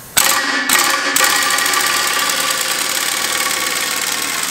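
Pneumatic impact wrench hammering on the large nut at the end of a disc-harrow gang shaft. It kicks in just after the start, checks briefly about a second in, then hammers steadily with a rapid rattle.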